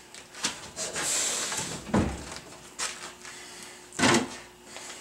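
Sheet-metal furnace cabinet being shoved up a wooden 2x4 ramp: scraping with several knocks and thumps, the loudest about two seconds in and about four seconds in. The metal is rubbing on the boards, scuffing the cabinet's paint.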